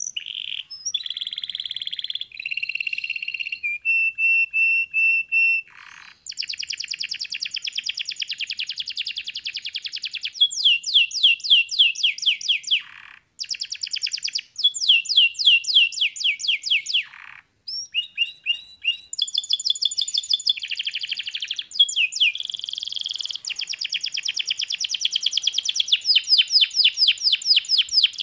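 Domestic canary singing a long, continuous song of fast trills: runs of quickly repeated falling notes alternating with steady, even trill passages, broken by a few brief pauses.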